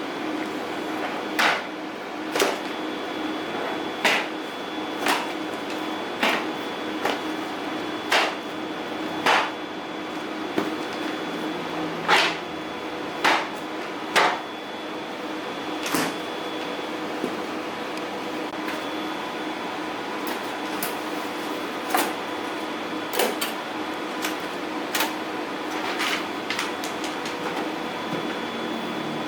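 Ricoh Pro C7500 production colour printer running, a steady hum with a faint high whine, punctuated by short sharp swishing clicks roughly once a second as sheets pass through. The clicks are loudest in the first half and become fainter and less regular after about sixteen seconds.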